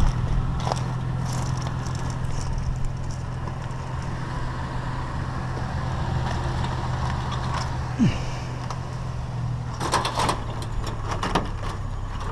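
Vehicle engine running with a steady low hum, with a few clicks and rattles near the end.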